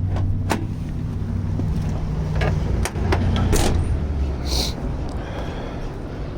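Car hood being unlatched and raised: several sharp clicks and clunks over a steady low hum, with a short hiss about four and a half seconds in.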